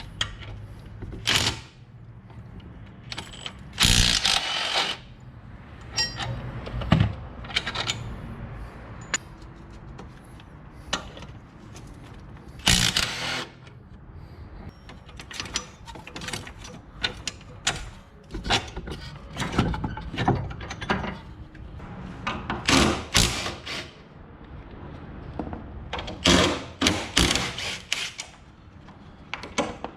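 Hand tools working on a car's front suspension strut and stabilizer link: irregular ratchet clicks and metal knocks and clanks, with a couple of longer, louder rattling bursts about four seconds and thirteen seconds in.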